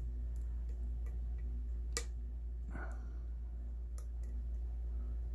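Small, sharp metal clicks and a brief scrape of a lockpick working pins inside a padlock's keyway, irregularly spaced, with the strongest click about two seconds in, over a steady low hum.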